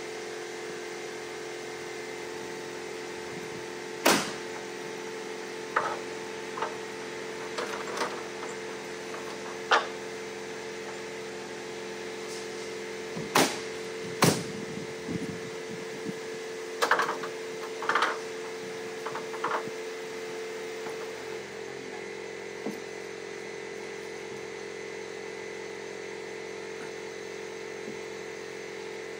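Sharp single knocks, about a dozen spread over twenty seconds, of siding boards being fastened up, over a steady machine hum that partly stops about two-thirds of the way through.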